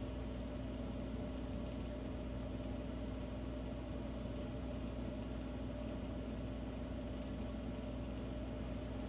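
Air conditioner running with a steady hum and whir, several low tones held level over a wash of fan noise. It is the sound the owner likens to a space alien, or to Darth Vader quietly talking.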